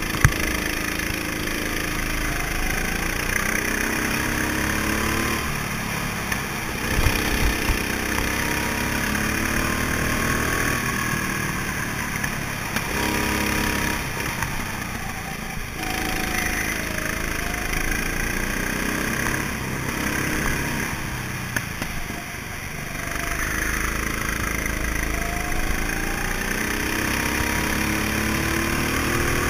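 Go-kart engines revving, their pitch rising and falling over and over as the karts speed up and slow down, with more than one engine heard at once over a steady low rumble. A few short knocks about seven seconds in.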